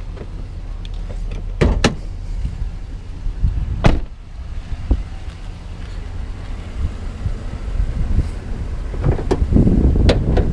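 Van door shut with a solid thud about four seconds in, after a lighter knock, over a steady low rumble. Near the end comes a stretch of clatter and handling noise as the hood is unlatched and raised.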